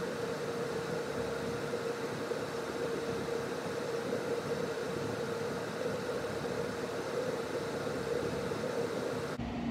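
Car engine idling with a steady hum, heard from inside the parked car's cabin.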